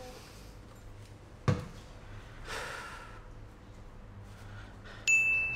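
A single knock about one and a half seconds in, then a breathy sigh. Near the end a sudden, bright bell-like ding sound effect rings out steadily, the loudest sound here.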